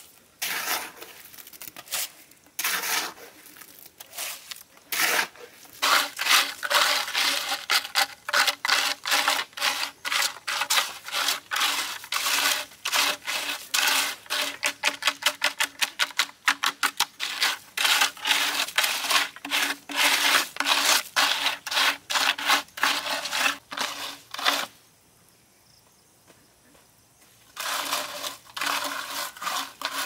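A hand trowel scraping and smoothing wet concrete in many quick repeated strokes, fastest in the middle. The strokes stop for a few seconds near the end, then start again.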